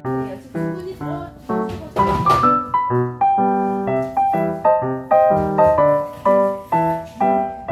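Background piano music, struck notes in a steady, even rhythm. A short burst of noise about two seconds in.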